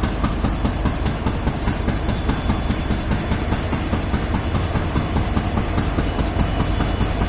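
Diesel engine of an Indian Railways WDG4G (GE Evolution-series, twelve-cylinder GEVO) locomotive idling steadily, with a fast uneven low pulsing and a light regular clicking. The idle sound is one the recordist calls weird.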